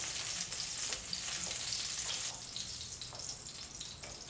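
Halved pointed gourds sizzling in hot mustard oil in a frying pan, with light scrapes and taps of a wooden spatula as the pieces are lifted out. The sizzle gets fainter a little over two seconds in as the pan empties.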